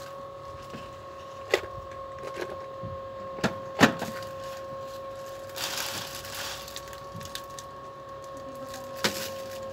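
A few sharp knocks and taps, the loudest about four seconds in, and a brief rustle near the middle, over a steady high-pitched hum.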